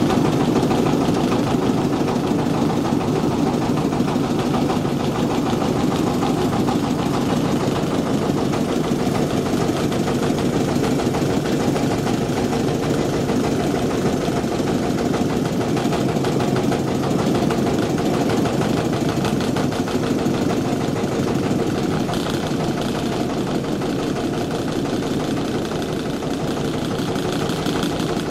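Motorcycle engine running steadily with an even, fast firing rhythm, holding about the same speed and level throughout.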